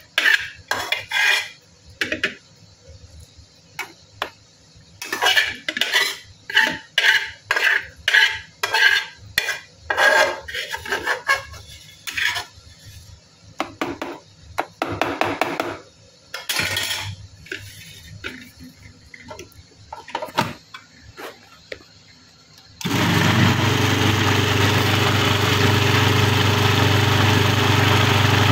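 A spoon clinking and scraping against cookware in many short strikes, as masala is moved into a mixer-grinder jar. After about twenty-three seconds an electric mixer grinder starts abruptly and runs with a loud, steady whirr, grinding the cooked masala with cashew and groundnut paste.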